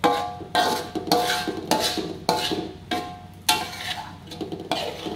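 A spatula scraping and knocking against a metal wok about twice a second, each stroke leaving the wok ringing briefly.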